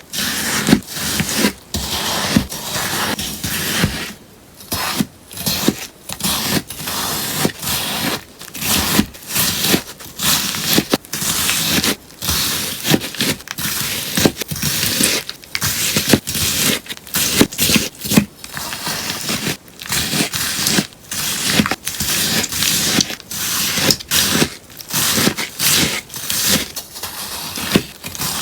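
Melamine-sponge slime being cut again and again: a long run of short, crisp, crunchy cuts, about one or two a second.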